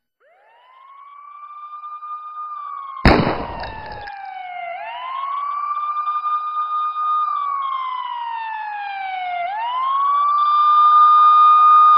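A siren wailing slowly: its pitch climbs, holds high, then falls, about every four and a half seconds. A single loud bang cuts in about three seconds in.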